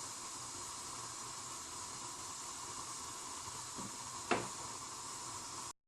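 Pot of water and pine shoots at a steady boil on the stove, a constant hiss, with one light knock about four seconds in. The sound cuts off suddenly just before the end.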